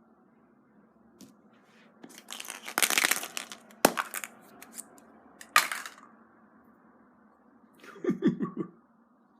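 Hands opening a surprise egg: a crinkling, tearing wrapper for about a second, then sharp cracks and snaps as the egg is broken open, and a short clatter near the end.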